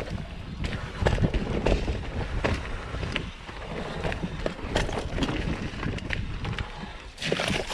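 Mountain bike rolling down a rough, rooty trail: a steady rumble of tyres over dirt and roots, broken by frequent irregular knocks and rattles as the bike hits bumps, with wind on the microphone.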